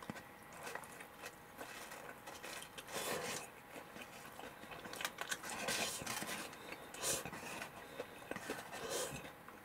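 Quiet eating sounds: a person chewing, with scattered small clicks and scrapes of utensils against a bowl.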